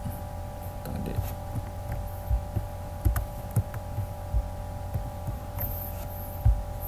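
Steady electrical hum with a few fixed tones, under irregular soft clicks and low knocks from a computer keyboard and mouse being worked.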